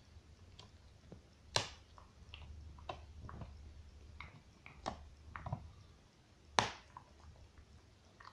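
A dog gnawing on a bone: irregular clicks and cracks of teeth on bone, with two sharper cracks about a second and a half in and again near the end.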